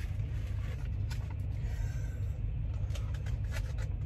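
Steady low rumble of an idling truck heard inside the cab, with a few light clicks and rustles of things being handled.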